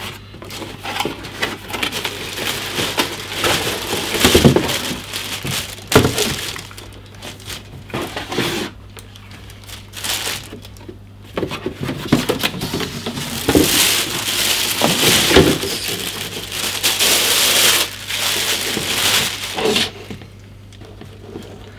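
Unboxing noise: a cardboard box being opened and handled with knocks and scrapes, then a plastic bag crinkling and rustling for several seconds in the second half as the helmet is unwrapped.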